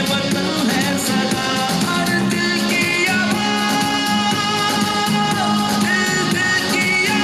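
Song with singing and instruments, played through a Ronin Bluetooth speaker.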